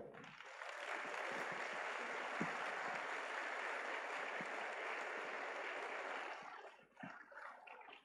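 Audience applauding steadily, then dying away near the end.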